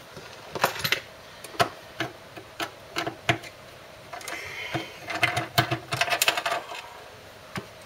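The plastic front panel of a CD player being worked loose from its metal chassis by hand: scattered sharp clicks and knocks, with a busier run of clicks past the middle.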